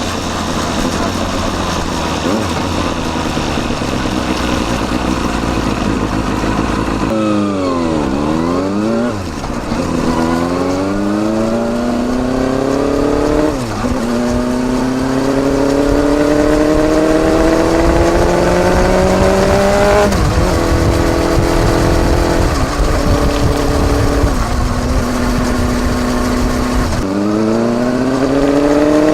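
Kawasaki Balius 250 cc inline-four exhaust through a Wr's muffler with its baffle fitted, heard right at the silencer while riding. It runs steadily at first, the revs fall and rise quickly for a couple of seconds, then climb through the gears with a sudden drop at each upshift, hold steady for a while, and fall and climb again near the end.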